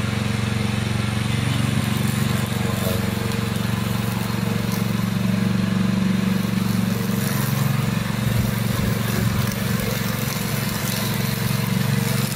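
Tracked remote-control lawn mower's Loncin 9 hp petrol engine running steadily as the mower drives through and cuts tall grass.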